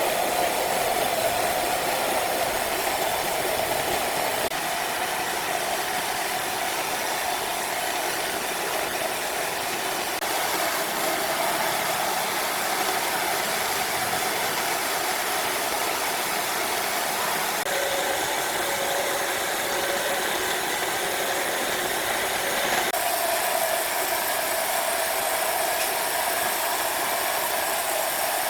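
Wood-sawing machinery running with a steady, noisy drone, changing abruptly in tone a few times.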